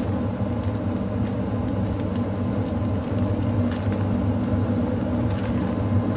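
Plastic zip-top bag crinkling in short scattered rustles as hands squeeze the air out of it, over a steady low machine hum.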